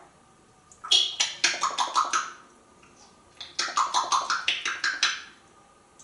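African grey parrot making two runs of rapid clicks and pops, about eight a second, each run lasting about a second and a half.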